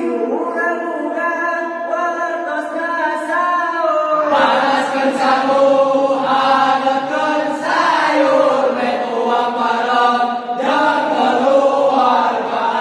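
A group of young men singing a Sundanese sahur wake-up song together in a chant-like chorus. The singing is lighter at first, then fuller and louder from about four seconds in as more voices come in.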